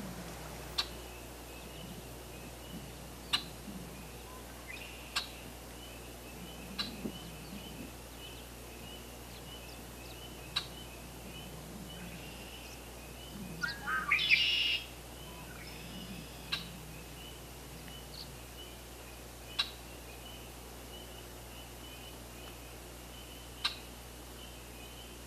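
Wild birds calling: short, sharp single notes every few seconds over a steady high-pitched trilling in the background, with a louder, longer burst of calls about halfway through.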